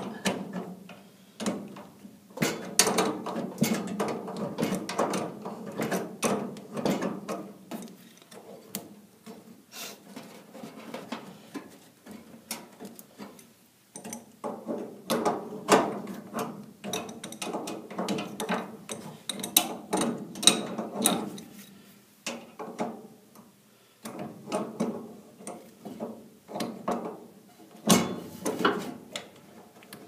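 A small metal wrench working the tight thermocouple nut on a furnace gas valve: irregular metallic clicks and scrapes of tool on fitting, over a faint steady low hum.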